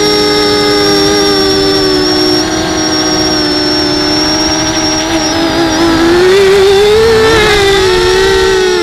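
250 mm FPV quadcopter's motors and propellers whining in flight: several close, steady tones whose pitch wavers and rises about six seconds in, then settles back.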